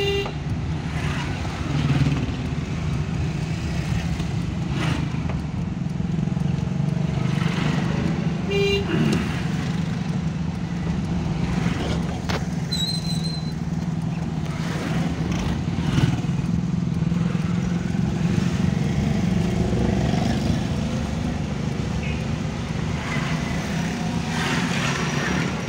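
Steady drone of a Suzuki Mehran's small three-cylinder engine and road noise, heard from inside the cabin while driving in slow city traffic. Short horn toots come at the start and again about nine seconds in, a brief high beep around thirteen seconds, and a thump about sixteen seconds in.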